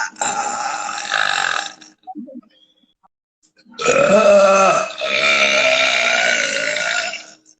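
A woman belching: one long belch ends about two seconds in, and after a short pause a second, longer belch is drawn out for about three and a half seconds, with a brief catch partway through.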